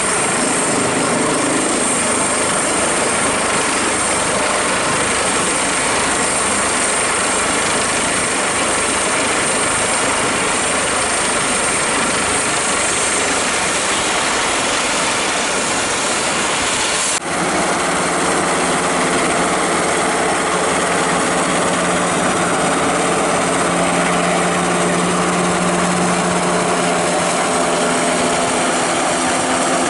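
Light military helicopter running on a ship's flight deck with its rotors turning: a steady high turbine whine over rotor noise. About halfway through it cuts abruptly to a grey navy Seahawk-type helicopter's rotors and engines as it flies just off the deck, with a steadier low hum.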